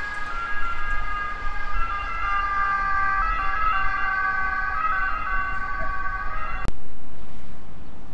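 Brakes squealing on a train as it slows, several high tones held together and stepping up and down in pitch over a low rumble. The squeal cuts off abruptly near the end and a louder, steady rushing noise takes over.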